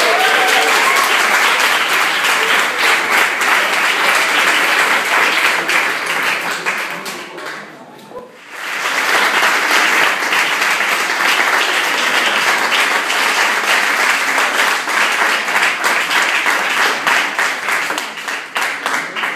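Audience applauding. The clapping dies away about eight seconds in, then a second round starts a moment later and fades near the end.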